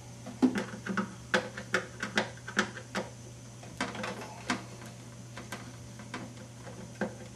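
Hard plastic clicks and knocks from hands pulling at the cabin top and hull of an Atlantio 059 RC boat: a quick irregular run of about a dozen clicks in the first half, then a few scattered ones near the end.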